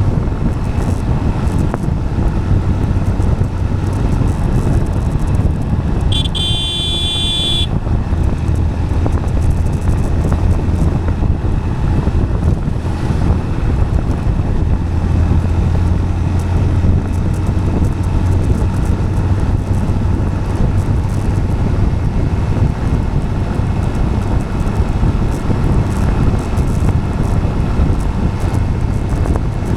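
A road vehicle moving steadily on asphalt: a continuous roar of tyre and wind noise over a low steady drone. About six seconds in, a short high-pitched tone sounds for a second or two.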